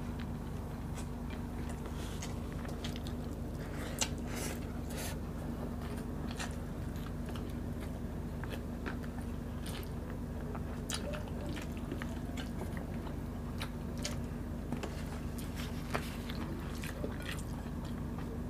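Close-up eating sounds of people chewing chicken adobo and rice by hand: wet mouth clicks and smacks scattered throughout, over a steady low hum.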